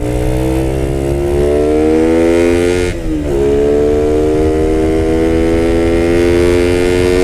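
Suzuki Satria FU's 150 cc single-cylinder four-stroke engine running through a Lone Rider HE CMMS 30 cm racing exhaust, revs climbing steadily. About three seconds in the pitch drops sharply, then climbs slowly again.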